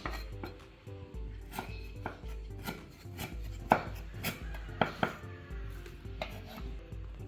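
Irregular sharp knocks and taps, about ten of them, the loudest near the middle, over background music with a steady pulsing beat.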